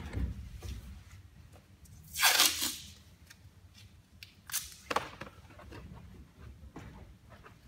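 Adhesive tape pulled off its roll with one loud rip about two seconds in, then two short crackles and small handling noises.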